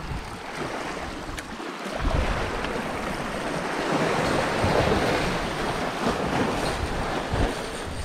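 Small sea waves washing and splashing against shoreline rocks, swelling about halfway through, with some low wind rumble on the microphone.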